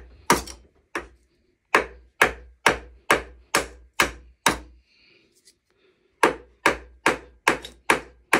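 Hammer blows on a laminated chainsaw bar clamped in a steel vise, driving the bar's layers apart. Two single strikes, then a steady run of blows about two a second, a pause of about a second and a half around the middle, and a second run near the end.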